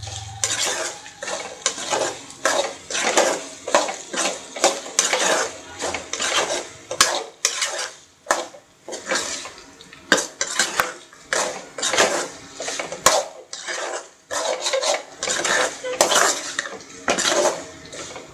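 Slotted steel ladle scraping and stirring around a metal kadai, tossing pieces of dry-fried chicken in quick, irregular strokes about two a second.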